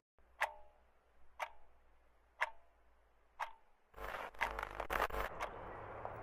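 A clock ticking four times, once a second, each tick sharp with a short ring. About four seconds in, a burst of crackling static from an old television switching on takes over and settles into a steady hiss.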